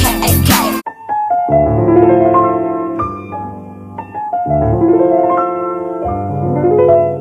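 Background music: a hip-hop track with a heavy beat cuts off abruptly about a second in, and a slow solo piano piece follows.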